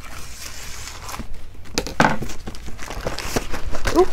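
Small plastic bag crinkling and crackling as it is handled and opened by hand, in irregular bursts that are loudest about two seconds in and again near the end.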